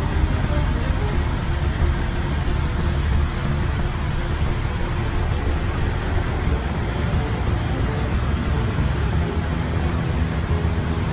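Steady rushing noise of an airliner in flight, heard inside the flight deck: airflow and engine noise with a strong low rumble that stays even throughout.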